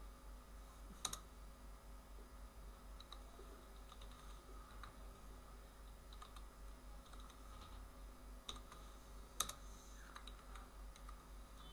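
Faint computer keyboard typing, with scattered key taps and a few sharper clicks, one about a second in and two near the end, over a low steady hum.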